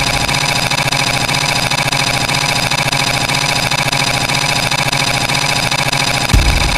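A loud, steady engine-like drone, with a sudden low thump near the end.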